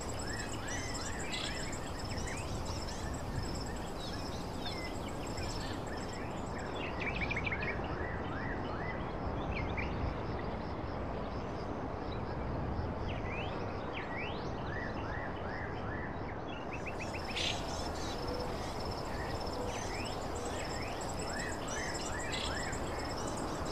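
Steady background noise with many short, high chirps scattered throughout and a faint steady high whine, like birds and insects in the background.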